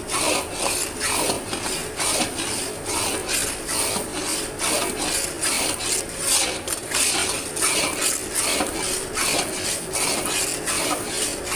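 Flat metal spatula scraping and stirring a thick, crumbly milk-halwa mixture around an iron karahi in repeated strokes, about two a second. The mixture is being cooked down until it turns dry and grainy.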